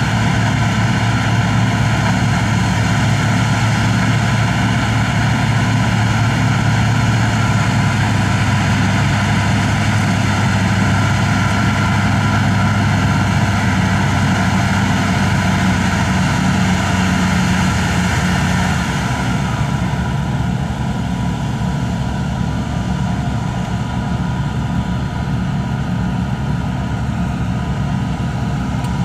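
Don-1500 combine harvester and a farm tractor, their diesel engines running steadily. About two-thirds of the way through, the higher part of the sound fades away and the overall level drops a little.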